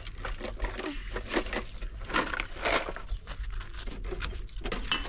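An irregular run of light clicks, knocks and rustling from things being handled.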